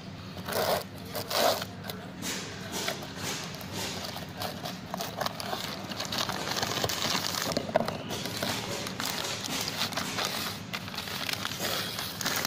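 A cardboard box being opened by hand and a pressure cleaning gun pulled out of its clear plastic bag: rustling cardboard and crinkling plastic, with a couple of louder knocks in the first two seconds.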